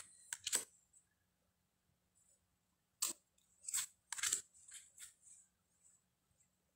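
Tarot cards being handled and flipped, giving short papery slides and flicks: a couple just after the start, then a cluster of several from about three seconds in.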